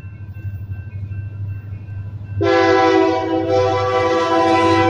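Union Pacific diesel locomotive's multi-chime air horn starts suddenly about halfway in and is held loud to the end, over the low rumble of the approaching locomotive.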